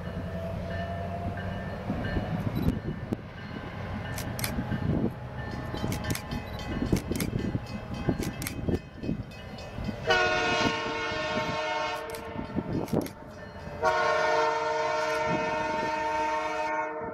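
Low rumble of an approaching diesel train with scattered clicks, then two long blasts of the locomotive's multi-note air horn, one about ten seconds in and one about fourteen seconds in, each lasting about three seconds.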